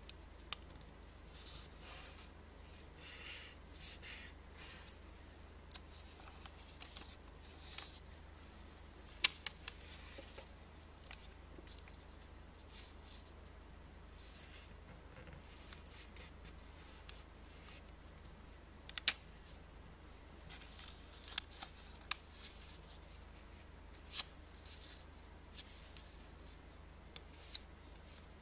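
Paper banknote rustling and crinkling as it is folded and its creases are pressed by hand, with a few sharp crackling clicks of the stiff note.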